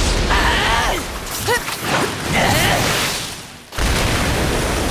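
Anime battle sound effects: dense rushing impact noise with two short shouts of effort, then a brief dip and a sudden loud blast of crashing debris about four seconds in.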